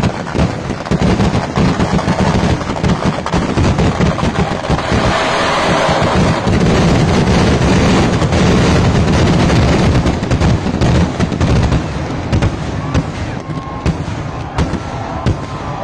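Kerala temple-festival fireworks (vedikkettu) going off in a rapid, unbroken barrage of bangs. The explosions pile into a near-continuous roar in the middle, then thin to more separate bangs near the end.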